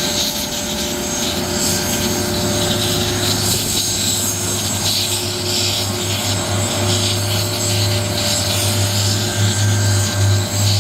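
Police helicopter's turbine engines running with a steady whine, several held tones over a rushing noise, and a low hum that comes in after a second or two and wavers near the end.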